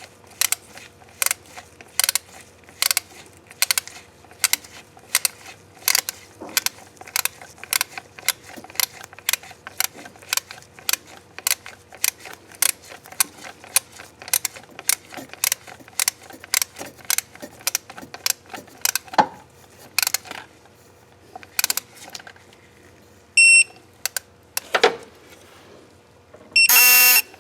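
Ratcheting wrench clicking steadily, about three clicks a second, as a bolt is run in, stopping about twenty seconds in. Near the end, two electronic beeps, the second longer and louder.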